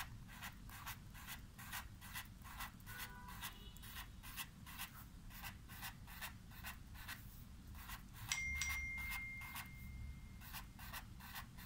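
Black fine-tip marker pen scratching short strokes on paper, about three a second, drawing small leaf shapes. A little past the middle, a steady high tone sounds for about two seconds.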